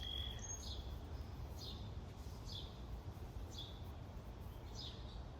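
A small bird calling a short, falling chirp over and over, about once a second, over a low steady outdoor rumble.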